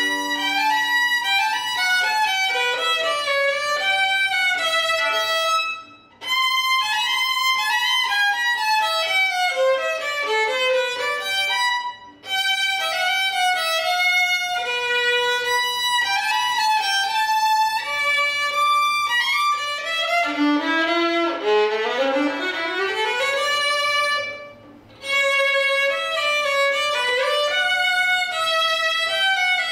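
Solo violin played with the bow: a melodic practice passage broken by three short pauses, with a quick rising run of notes shortly before the last pause.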